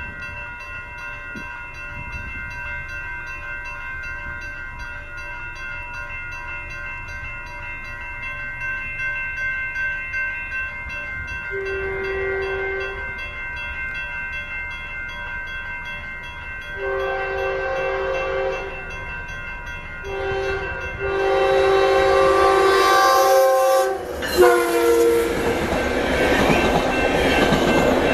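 Railroad crossing bells ringing steadily as a Metrolink commuter train approaches and blows its multi-chime horn. There is a short blast about twelve seconds in, then a long, a short and a long blast, the grade-crossing signal. Near the end the train passes close by with a loud rush of wheel and rail noise.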